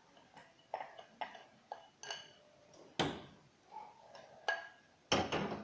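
Kitchenware clinking and knocking: a glass mixing bowl tipped and tapped as crepioca batter is poured into a frying pan, a string of separate knocks with the loudest about three seconds in and a cluster near the end.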